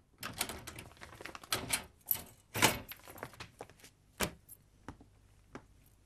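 Keys rattling in a front-door lock and the door being opened: a quick run of clicks and knocks in the first three seconds, the loudest about two and a half seconds in, then a few lighter taps.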